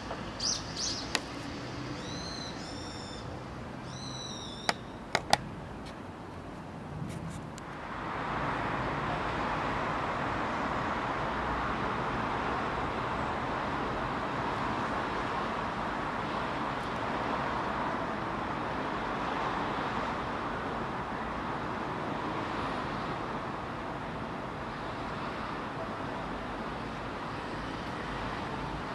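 Outdoor ambience: a few high chirping bird calls and a handful of sharp clicks in the first seconds. About eight seconds in, a steady rushing noise comes up and runs on at an even level.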